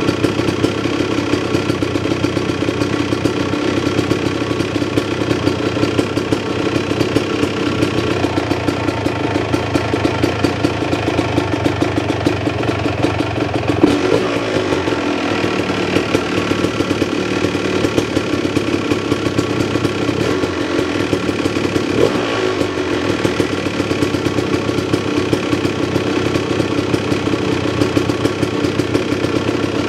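Freshly rebuilt 2004 Yamaha YZ250 single-cylinder two-stroke dirt bike engine idling steadily, with two brief throttle blips about halfway through and again a few seconds later.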